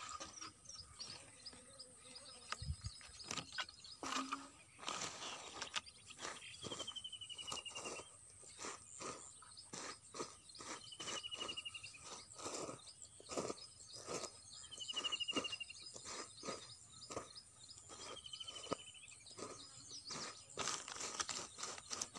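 Hands kneading and crumbling damp rice bran on a woven plastic sack: a run of soft crunches and rustles. A bird repeats a short falling chirp four times, about every four seconds, over a steady high insect drone.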